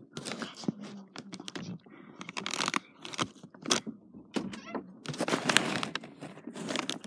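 Rustling and scraping with scattered clicks and knocks: a person shifting among things in a closet, with the recording device being handled.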